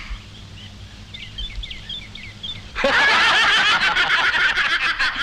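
Men bursting into loud laughter together about three seconds in, after a quiet pause.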